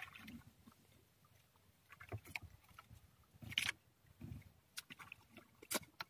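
Quiet eating sounds: a handful of faint, scattered clicks and mouth noises with a few soft knocks, as cooked fish is picked off a spoon and chewed.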